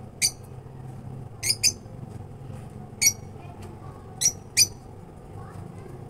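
Lovebird giving short, shrill, high-pitched squawks, six in all, several in quick pairs, over a steady low background hum.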